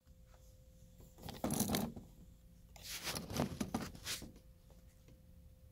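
Handling noise of a hardcover picture book being slid and adjusted on a desk: two stretches of scraping and rustling with small knocks, the first about a second in and the second around three seconds in.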